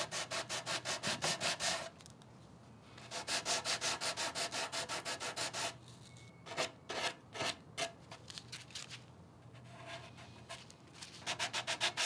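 Hand sanding with a folded sheet of sandpaper, smoothing dried epoxy putty on the corner of a veneered wooden table leaf: quick back-and-forth scratching strokes, several a second, in runs of about two seconds with short pauses and a few softer strokes between.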